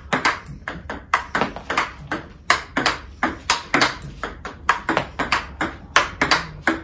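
Table tennis rally: the celluloid-type ball clicking off the bats and bouncing on the table in a steady run of about three hits a second. The player's bat is faced with Xiom Omega VII China Guang, a hard 55-degree tacky rubber.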